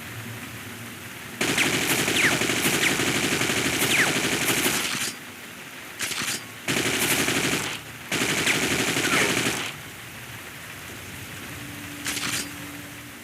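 AK-47 automatic rifle firing in bursts: a long burst of nearly four seconds, then four shorter bursts, with a steady hiss between them.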